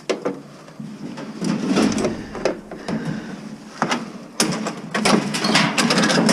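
Appliance casing parts being pried and pulled apart by hand during scrapping: irregular clattering, scraping and knocks, loudest about two seconds in and again from about four and a half seconds.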